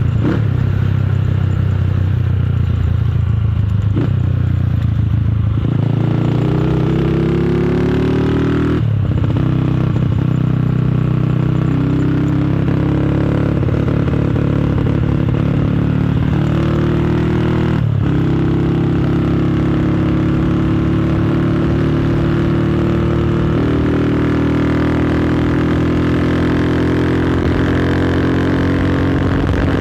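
Motorcycle with a loud aftermarket exhaust, ridden on the road. The engine note climbs and steps through the revs, with two brief sharp drops in pitch, as at gear changes.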